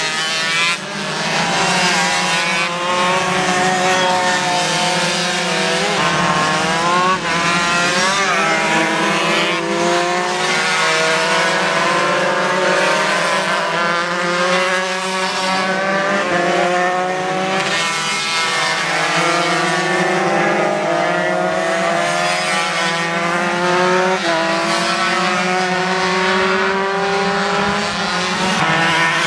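A pack of 125 cc underbone race motorcycles running hard, several engines at once. Their notes repeatedly climb and drop as the riders accelerate, shift and brake through the corners, over a steady low drone.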